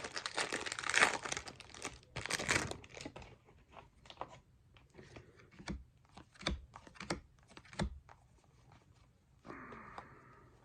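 A plastic wrapper on a pack of baseball cards being torn open and crinkled for the first few seconds, then softer scattered clicks and taps as the cards are handled.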